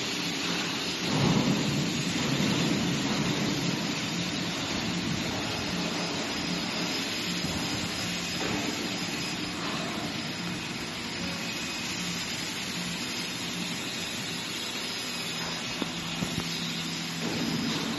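Steady workshop background noise: an even rushing hiss with a low hum underneath, swelling a little about a second in.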